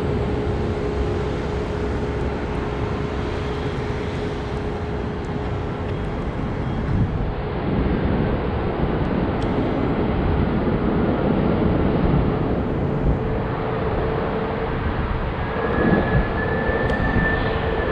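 Jet airliner engines running: a steady rumble with a held tone, and a higher whine that comes in near the end.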